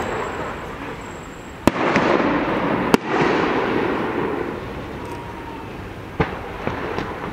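Aerial firework shells bursting: two sharp bangs about a second apart, each followed by a drawn-out noisy tail, then a smaller bang about six seconds in.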